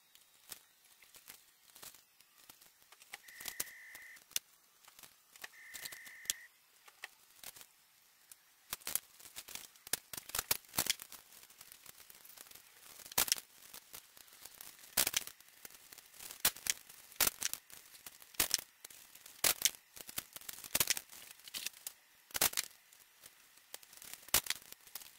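Tape and masking material being torn off and pressed onto a motorcycle helmet by hand: a string of short tearing and crackling rips, sparse at first and coming thick and fast after the first several seconds. Two short high beeps sound in the first few seconds.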